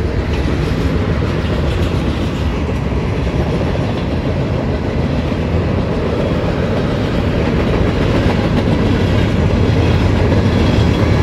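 Freight train cars rolling past at close range: a steady rumble of steel wheels on the rails with rhythmic clacking, gradually getting louder. In the last second a locomotive's engine drone starts to come through as it approaches.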